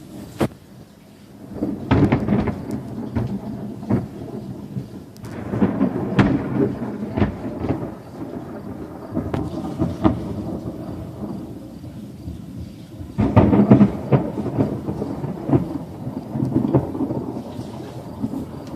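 Thunder from a supercell thunderstorm rumbling in several loud swells: about two seconds in, again from about five to eight seconds, and most strongly around thirteen to fourteen seconds, with sharp cracks among the rumbles.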